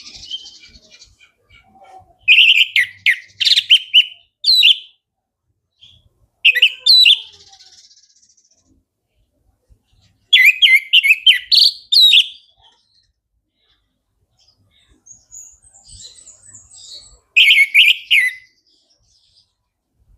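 Orange-headed thrush singing full, open-throated song ('ngeplong'): four loud phrases of quick, varied notes a few seconds apart, with fainter high chirps between them.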